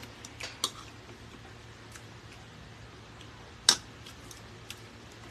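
Spoon clinking against a ceramic bowl while eating: a few light clicks in the first second, then one louder, sharp clink a little under four seconds in.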